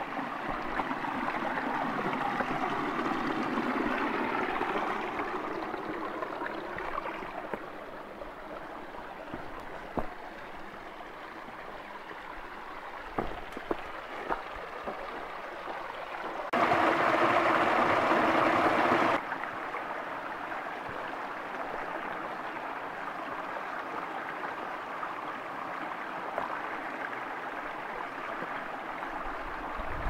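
Shallow rocky stream trickling and gurgling over stones. It runs steadily, with a louder rush of noise for about two seconds a little past the middle and a few faint knocks just before it.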